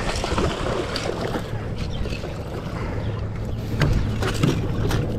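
Boat on the water: a steady low engine hum under wind noise on the microphone, with a couple of sharp knocks about four seconds in.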